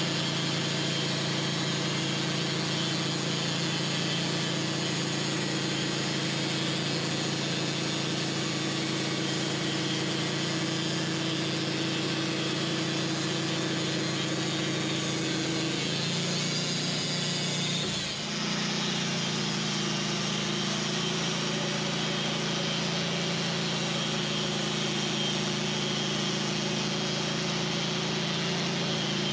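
Wood-Mizer band sawmill running steadily, its engine hum under a constant hiss. The engine note shifts about halfway through, with a brief dip in level a couple of seconds later before it settles again.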